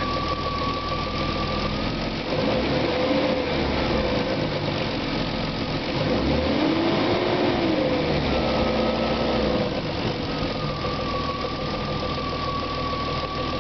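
BMW E36 M3's S50B30 3.0-litre straight-six idling, then gently revved up and back down about two seconds in, returning to idle near the end. It carries the bad noise that the owner can't place between the VANOS unit and a worn timing chain.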